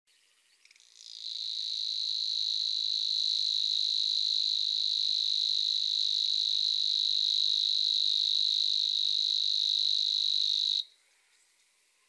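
A steady, high-pitched buzzing trill from the reedbed: one unbroken sound of about ten seconds that fades in over the first second or so and cuts off sharply near the end.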